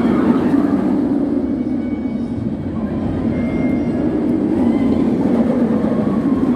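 Steel roller coaster train running along its track overhead, a steady loud rumble.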